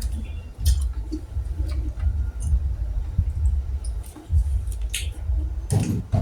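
Close-up eating of boiled golden apple snails: short clicks of snail shells clinking together and wet squishing from chewing and sucking the meat out, with a louder wet slurp-like burst near the end, over a steady low rumble.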